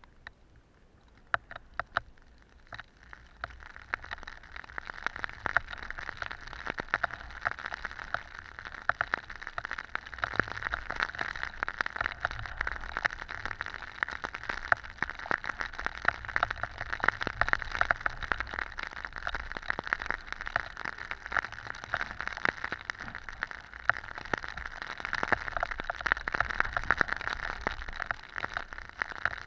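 Deep powder snow spraying over a skier and pattering densely onto the pole-mounted camera, a fast crackling patter with low wind rumble underneath. It begins with a few scattered ticks and builds to a steady rush about three seconds in, as the run through deep snow gets going.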